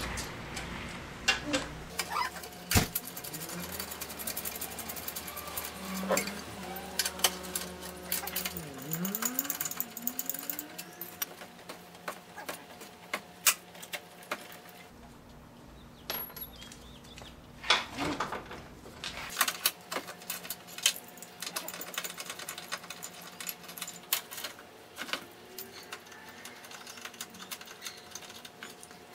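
Tool work on the car's front-end fasteners: scattered metal clicks and clinks, with a small power-tool motor running steadily in two stretches, one early and one about halfway through.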